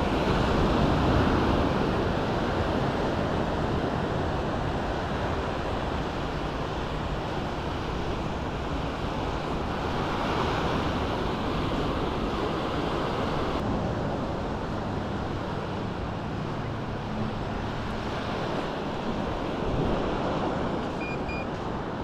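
Small waves breaking and washing up on a sandy shore, with wind on the microphone; the surf swells louder near the start and again about ten seconds in.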